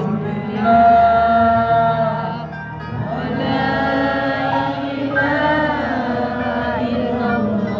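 Sholawat, Islamic devotional singing in praise of the Prophet, sung over musical accompaniment, with long held notes that waver and bend in pitch.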